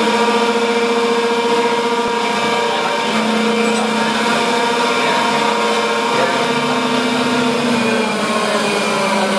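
The spindle of a CNC vertical machining center running with a steady whine of several tones that waver slightly in pitch: the noise of its worn spindle bearings.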